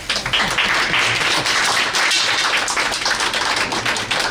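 A small group of people applauding, with dense, steady clapping.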